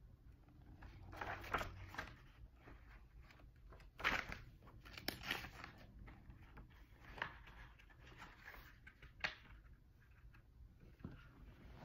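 Paper pages of a tarot deck's guidebook being turned and handled: a few short, soft rustles, the loudest about four seconds in.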